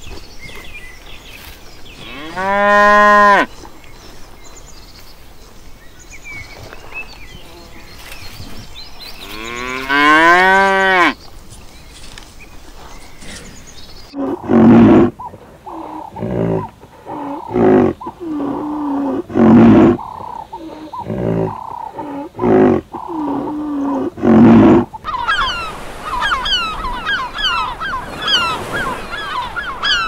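Cattle mooing twice, each moo long and arched, rising then falling in pitch, several seconds apart. Then a string of short calls about one a second from a white rhinoceros, and near the end many gulls calling over one another.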